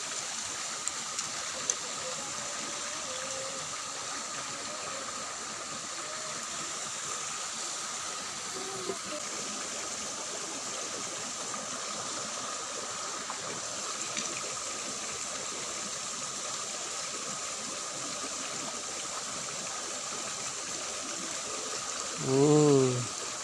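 Steady rush of water flowing along a small ditch. Near the end a voice calls out once, briefly and loudly.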